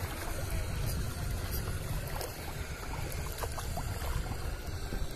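Wind buffeting the microphone with a steady low rumble, over small waves lapping in shallow water and a few faint ticks.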